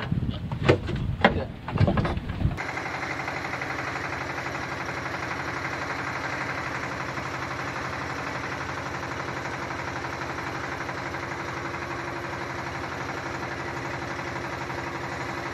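A steady engine hum at an even, unchanging pitch, cutting in abruptly about two and a half seconds in after a brief stretch of blustery, voice-like noise.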